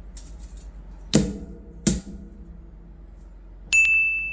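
Etched steel model-kit sheets and paper being handled on a cutting mat: a few sharp knocks and rattles, the loudest two about a second apart. Near the end a bright, steady ding starts.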